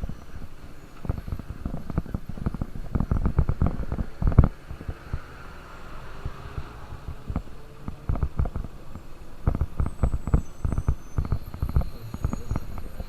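Wind buffeting a motorcycle-mounted microphone in irregular low thumps, with the KTM RC200's single-cylinder engine faint underneath while riding.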